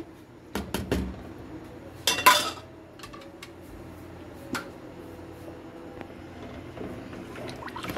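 Kitchenware knocking and clattering as a serving bowl and spoons are handled around a cooking pot: a few light knocks, then one short, bright clatter about two seconds in, and a single click later.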